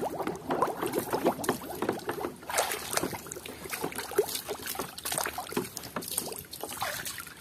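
Water sloshing and splashing in a plastic tub as a hand swishes a plastic toy elephant back and forth to wash green mud off it, with many small irregular splashes.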